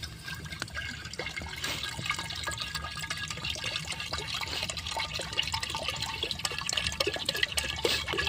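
Water being poured into a cooking pot set over a campfire, a steady splashing fill.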